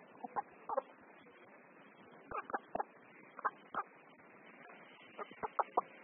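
Afghan Lari chickens clucking: short, sharp clucks in quick runs of two to four, with pauses of a second or so between.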